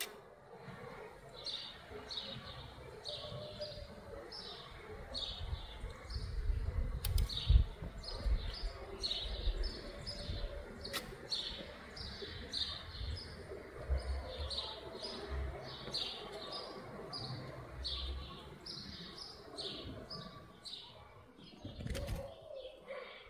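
A songbird repeating a short, high, falling chirp about twice a second, steadily throughout. Beneath it are low rumbling and thumps, the loudest about seven and a half seconds in, with a few sharp clicks.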